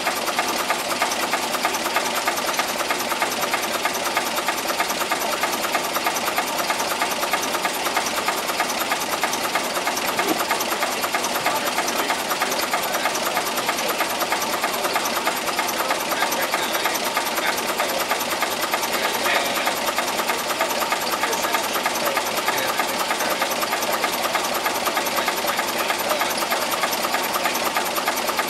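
Small narrow-gauge Motor Rail locomotive's engine idling with a steady, fast knocking clatter.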